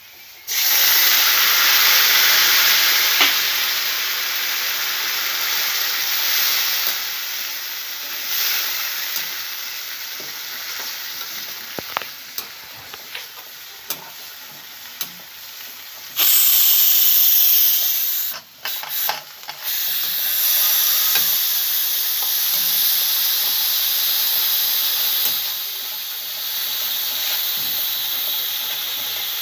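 Hot oil tempering of garlic, onion and curry leaves bursting into a loud sizzle about half a second in, as boiled dal is poured into it, then easing into a steady frying hiss while a spoon stirs and clinks against the pan. A second loud surge of sizzling comes partway through.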